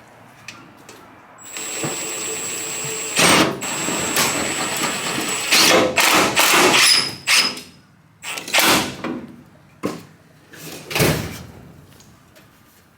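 Power drill running on the aluminum truck-bed panel: one steady run of about four seconds with a high whine, then several shorter bursts.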